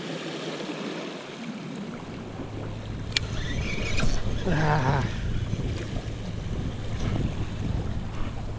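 Waves washing against rocks, with wind buffeting the microphone from about a second and a half in. There are a couple of sharp clicks near the middle.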